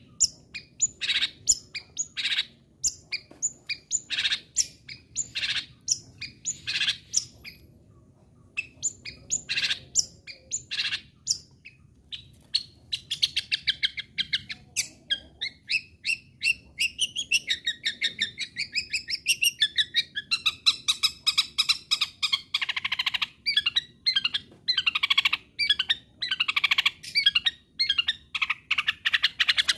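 Long-tailed shrike (cendet) singing hard: a run of short, sharp calls repeated one or two a second, then from about halfway a fast, continuous, varied chattering song.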